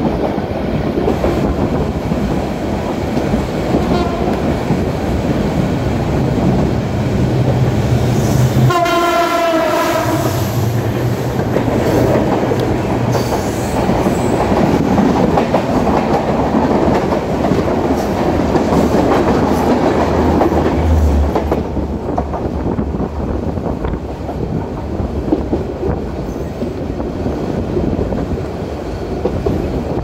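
A train running past on the track, a loud steady rumble throughout; its horn sounds once, briefly, about nine seconds in.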